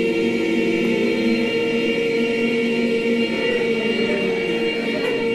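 A roomful of people voicing a long, rich, vibrating 'ee' vowel together in unison, held at a steady pitch through the whole stretch.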